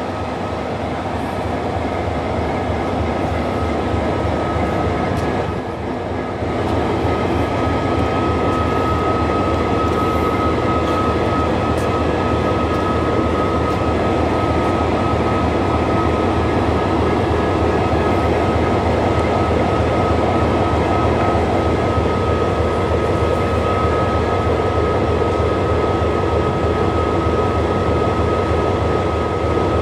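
Qube RL-class diesel-electric locomotives standing with engines running: a steady, loud engine hum with a steady high whine over it.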